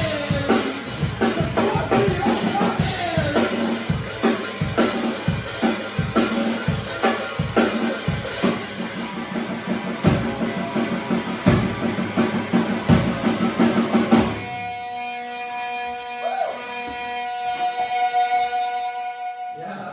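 A live rock band playing with drum kit and electric guitar. About 14 seconds in the drums stop and a held chord rings on, then fades out near the end as the song finishes.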